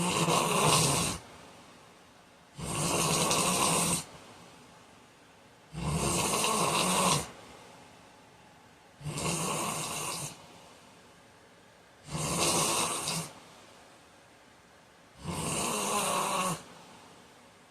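A man snoring loudly in a steady rhythm: six snores, each just over a second long, about three seconds apart, with quiet breathing between them.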